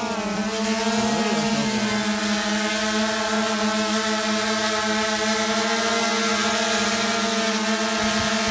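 Ideafly Poseidon 480 quadcopter's motors and propellers humming steadily as it flies low while carrying a hanging water bottle. The pitch wavers a little in the first second or two, then holds steady.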